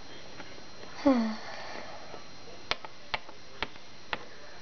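A short pitched voice sound about a second in. Then, from the middle on, a hard plastic Littlest Pet Shop figure taps on the desk top in a steady hop, about two sharp taps a second.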